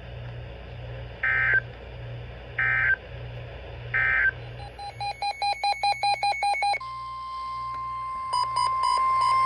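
Three short Emergency Alert System end-of-message data bursts, each a fraction of a second of screechy digital tone, about a second and a half apart. They are followed by a rapid string of electronic beeps, about five a second. About seven seconds in comes the steady 1050 Hz NOAA Weather Radio warning alarm tone, with a few short beeps over it, signalling that a new warning is about to be read.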